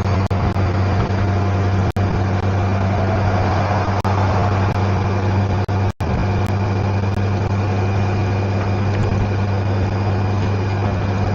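Honda Gold Wing motorcycle riding along: a steady engine hum with wind and road noise, picked up by a mic inside the rider's helmet. The audio cuts out for an instant twice.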